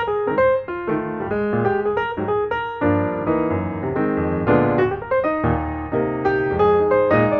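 Background music: a piano-led instrumental playing a quick run of notes over fuller chords.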